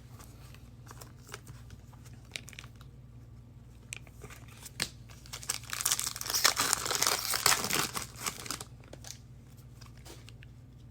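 A foil trading-card pack crinkling as it is handled and torn open, with a louder spell of tearing and crinkling a little past the middle. Scattered light clicks of cards being handled come before and after it.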